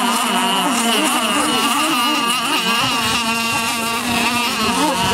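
Two radio-controlled racing boats' motors running at speed, their whine wavering up and down in pitch as they race and turn.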